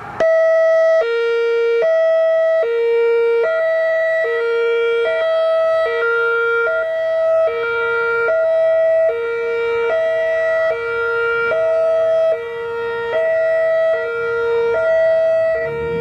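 Whelen WPS-3016 electronic outdoor warning siren sounding its hi-lo signal: a high and a low tone alternating about every 0.8 seconds, starting abruptly just after the opening. The loudness swells and dips as the rotating horn array turns.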